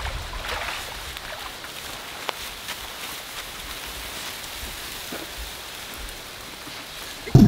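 Water dripping and splashing in a steady patter of many small drops, with one loud low thump just before the end.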